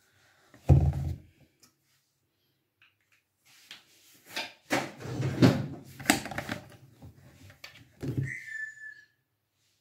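A large plastic jug of liquid soap being handled on a counter. A thud comes about a second in, then a run of knocks and scrapes as the jug is turned and lifted, and another thud near the end followed by a brief high squeak.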